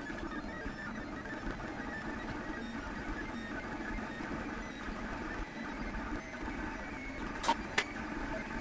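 Lulzbot TAZ 6 3D printer running a print, its motors making a steady mechanical whirr of many short, quickly changing tones. Two sharp clicks come close together about a second before the end.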